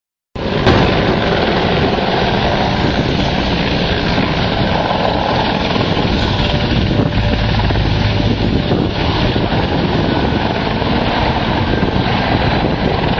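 Helicopter rotor and engine running steadily, cutting in abruptly a fraction of a second in.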